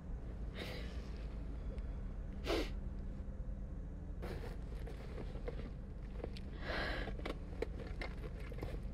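Steady low hum of a car cabin, with several short sniffs and breaths from a passenger sniffling.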